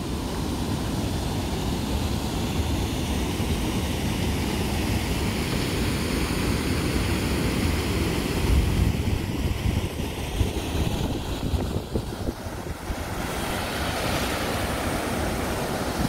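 Steady rush of flowing river water, with wind buffeting the microphone; briefly quieter about twelve seconds in.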